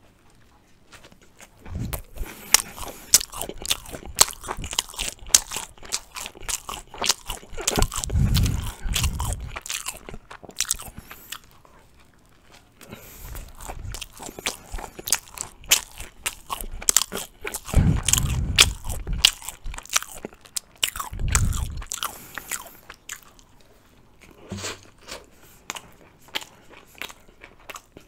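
Close-miked biting and chewing of Turkish Ramazan flatbread spread with ajvar: many sharp wet mouth clicks and crunches, with a few deeper thuds in between and short quieter pauses.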